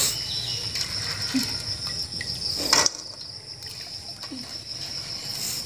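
An insect's steady high-pitched trill, with hands sloshing in a bucket of water while washing soaked chickpeas during the first half, and one sharp knock about three seconds in.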